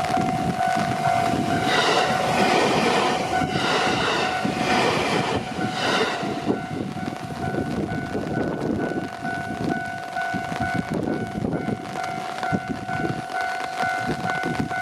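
A JR Hanwa Line electric train passing over a level crossing, its wheels rumbling on the rails while the crossing's warning bell rings steadily. A train horn sounds over the first few seconds, swelling and fading about once a second.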